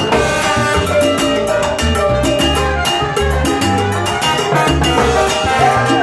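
Salsa band playing live, with a steady bass line, percussion and horns over a continuous groove.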